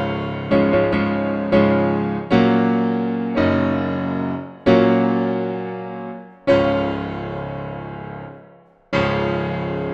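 Solo piano playing a slow, impressionistic piece: chords are struck one after another and left to ring and fade. The chords come further apart toward the end.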